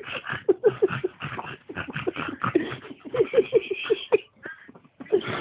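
Staffordshire Bull Terrier whimpering in short, quick bursts, several a second, breaking off briefly about four seconds in and starting again near the end.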